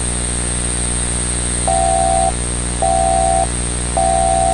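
Electronic alert beeps from a homemade Emergency Alert System–style alert being played back. They start about a second and a half in, each a steady two-tone beep a little over half a second long, repeating about once a second over a constant electronic hum and hiss.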